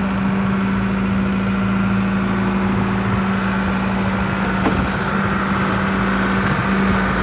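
John Deere backhoe's diesel engine running steadily at idle, a constant low hum with a faint knock about halfway through.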